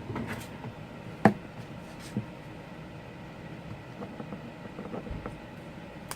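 Scattered small clicks and taps of repair tools and fingers working on an iPhone 4's screen assembly, with one sharper knock about a second in, over a faint steady hum.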